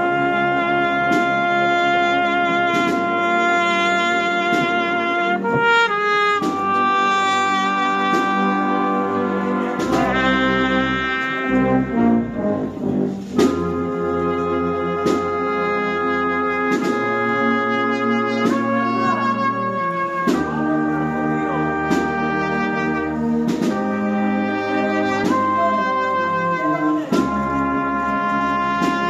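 Agrupación musical, a Spanish processional brass band of trumpets, other brass and percussion, playing a slow march: the brass hold sustained chords that change every second or two over steady percussion strokes.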